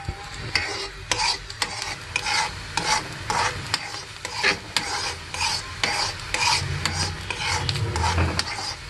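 A steel spoon stirring and scraping round a small black iron kadhai of simmering, frothy bait liquid made with asafoetida, baking soda and turmeric, at about two or three strokes a second, over a soft sizzle.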